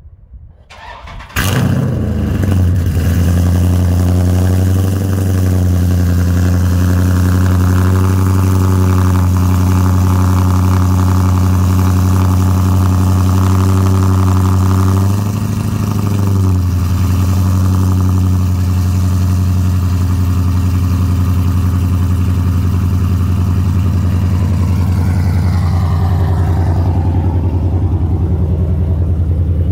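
Dodge Charger's 392 (6.4-litre) HEMI V8 with Corsa long-tube headers, an X-pipe and no mufflers or resonators, cold-started: a short crank, then it fires about a second and a half in and settles into a loud, steady fast idle. The idle rises briefly about halfway through and eases a little lower near the end.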